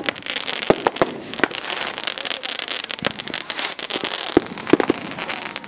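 Consumer fireworks going off all around: a steady run of sharp bangs and pops, several a second and irregularly spaced, over continuous crackling.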